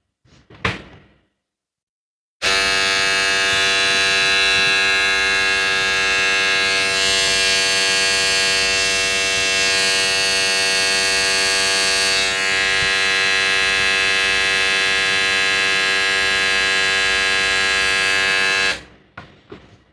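A non-original Wahl Vanish-style foil shaver switched on about two seconds in, its motor and cutter giving a loud, steady electric buzz that stops near the end. A brief click comes just before it starts.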